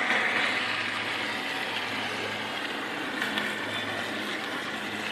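Radio-controlled boat's motor running steadily as the boat moves across the water.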